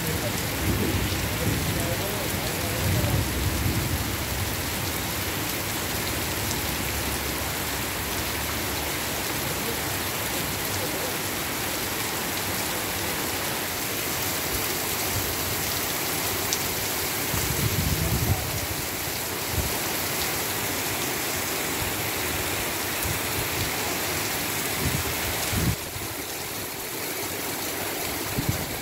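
Heavy rain pouring onto a street and pavement: a steady, dense hiss of rain with a few brief low rumbles, slightly quieter in the last few seconds.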